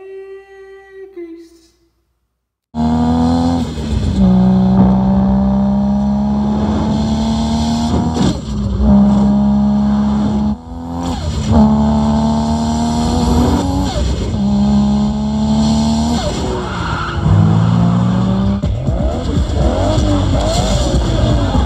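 A race car engine accelerating hard, starting suddenly about three seconds in. Its pitch climbs through each gear and drops back at a shift every two to four seconds, with tire squeal near the end.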